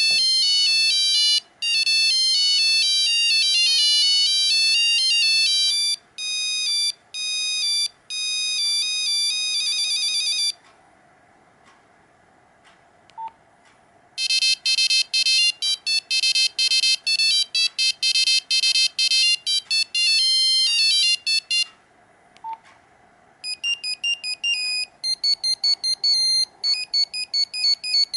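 Nokia 5125 mobile phone playing its built-in monophonic ringtones: beeping single-note melodies, one tune ending about a third of the way in, a second following after a pause of a few seconds, and a third starting near the end. A short single beep sounds in each pause.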